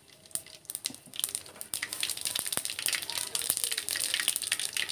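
Whole spices for a tempering sizzling and crackling in hot oil in a steel kadhai, a steady fine sizzle with many small pops. It is quieter for about the first second, then settles into an even crackle.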